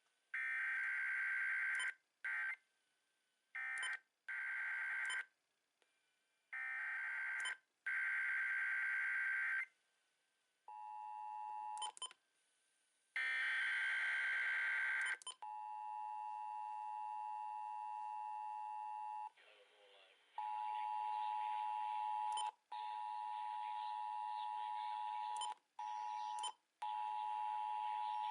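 Emergency Alert System tones: several short bursts of the warbling SAME digital header data in the first half, then the steady two-tone attention signal, with a few brief dropouts and another data burst in the middle.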